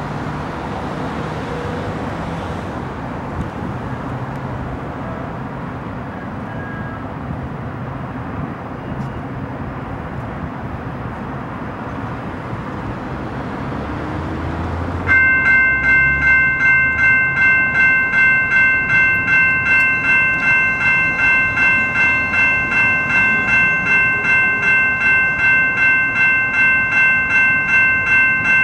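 Steady background noise, then about halfway through a railroad crossing's GS Type 2 electronic bell starts suddenly and rings on in fast, even chimes as the crossing warning activates.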